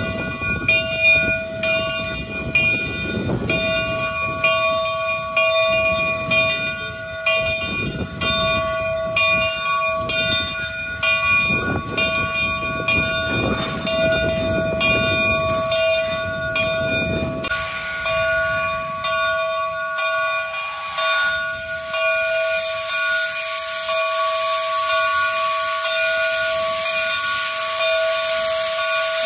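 Southern 401, a 2-8-0 steam locomotive, working slowly with a low rhythmic beat about twice a second over a steady whine. The beat dies away about two-thirds of the way in, and a loud steady steam hiss takes over, venting from the front cylinders.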